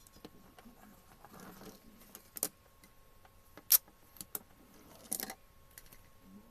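Handling noise: a soft rustle, then a few sharp clicks and light rattles of small hard objects, the loudest about three and a half seconds in and a short cluster near the end.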